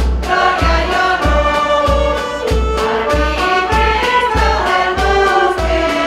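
Women's choir singing a hymn, accompanied by a small wind band with clarinets, over a steady low beat about three times a second.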